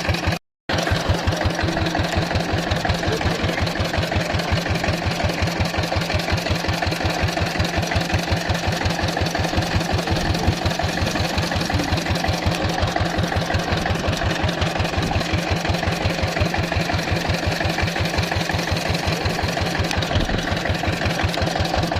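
Small wooden motorboat's (klotok's) engine running steadily with an even, rapid chugging pulse. The sound cuts out for a split second about half a second in.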